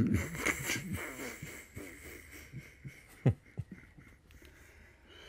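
Quiet laughter: a burst of chuckling at the start, then short breathy chuckles that fade out, with one sharper sound about three seconds in.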